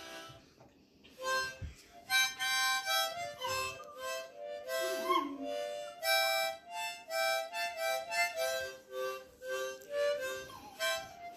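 A harmonica played in chords, stepping through a simple tune from about a second in. A miniature schnauzer puppy joins in a few times with sliding, wavering howls.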